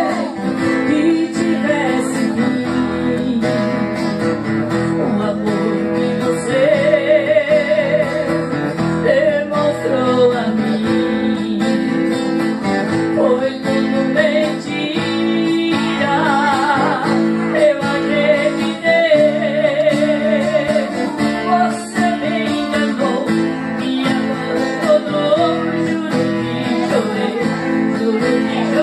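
Two acoustic guitars strummed and picked together, with a voice singing a wavering melody with vibrato over them.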